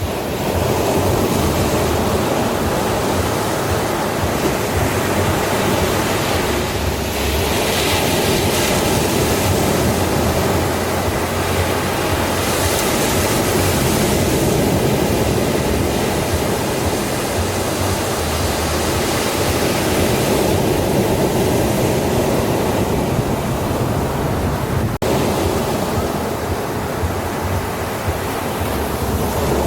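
Ocean surf washing onto a beach: a continuous rush of breaking waves that swells and eases, with brighter surges as crests break.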